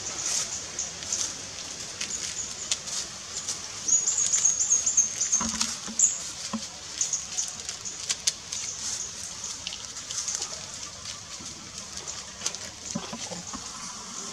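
A steady high-pitched insect chorus, such as cicadas or crickets, louder for about two seconds near the middle, with scattered light rustles and snaps of leaves and twigs as a baby macaque climbs through the branches.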